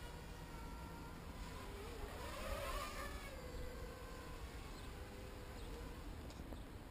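Small HK 250 quadcopter's electric motors and propellers buzzing in flight; the whine rises in pitch and gets louder about two to three seconds in as the throttle goes up, then drops back to a steadier hover buzz.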